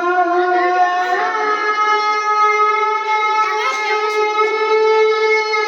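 A long, loud, horn-like blown note with a rich buzzy tone. It steps up in pitch about a second in and is then held steadily.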